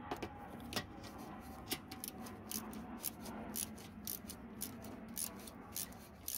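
Ratchet wrench on a socket extension clicking as it is worked back and forth to tighten a bumper mounting bolt: a run of sharp ticks, roughly four a second and unevenly spaced.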